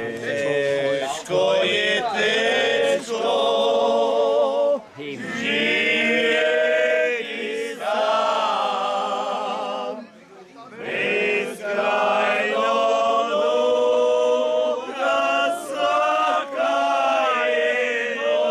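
A group of men singing together without accompaniment in long held notes, breaking off briefly about ten seconds in and then starting up again.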